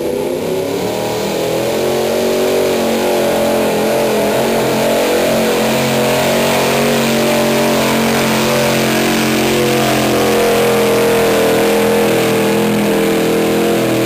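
Pickup truck engine at high revs under full load, pulling a weight-transfer sled through dirt. The revs climb over the first couple of seconds, then hold high and steady with slight wavering.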